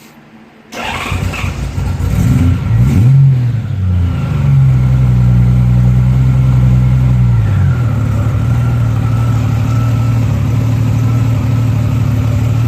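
Honda Goldwing GL1500 flat-six engine coming on about a second in, revved up and down a couple of times, then holding a steady fast idle before dropping to a lower, even idle about halfway through. It breathes through stock mufflers with the valves cut out and end caps fitted, which gives it a loud, bass-heavy exhaust note.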